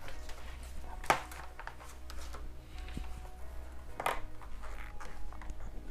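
Soft background music with a low hum, over which small parts are handled: a sharp click about a second in, another click-and-rustle about four seconds in, and lighter rattles between.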